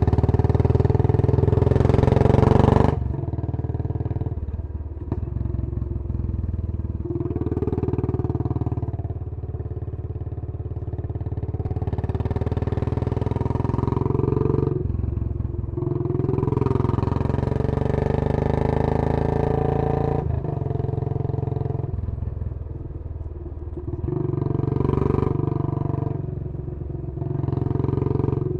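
Royal Enfield Bullet 500's single-cylinder engine heard through a Punjab long bottle exhaust while riding. The exhaust note swells each time the throttle opens and falls away sharply when it shuts, about three seconds in and again twice around the middle.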